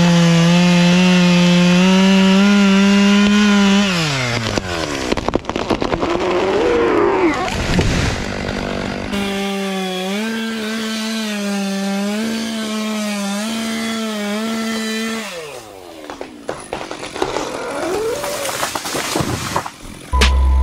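Stihl two-stroke chainsaw running at full throttle, held high for about four seconds, then falling in pitch. A rougher, uneven stretch follows, then a second full-throttle run of about six seconds that falls off again near the end.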